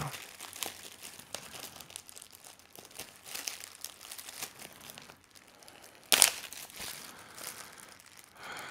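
Plastic wrapping and packing tape crinkling and being pulled and torn off a mailed package, in irregular small crackles, with one sudden louder rip about six seconds in.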